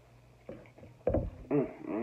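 A man eating, with mouth sounds, a low knock about a second in, and a short wordless vocal sound near the end.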